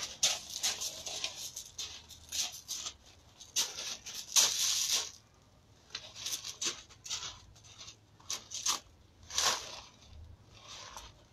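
Feet shuffling and scuffing on loose gravel in short, irregular crunches, the loudest and longest a little over four seconds in.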